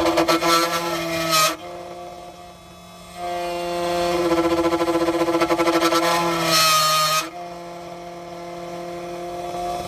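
Key-cutting machine running with a steady motor hum, and two louder stretches of cutting: one ending about a second and a half in, the other from about three to seven seconds in.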